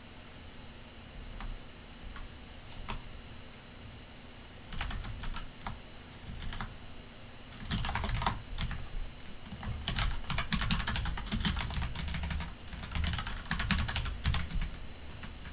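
Typing on a computer keyboard: a few single keystrokes at first, then quick bursts of typing from about five seconds in, densest in the second half.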